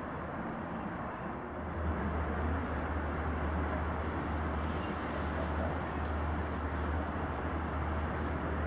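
Steady outdoor background rumble and hiss with a low hum underneath, stepping up slightly in level about two seconds in.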